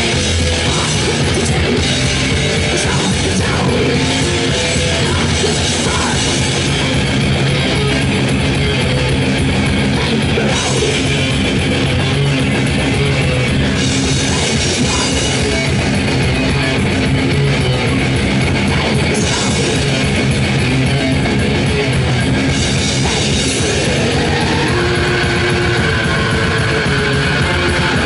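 Thrash metal played live and loud: distorted electric guitar, bass guitar and a drum kit going without a break, with a woman's harsh vocals at the microphone.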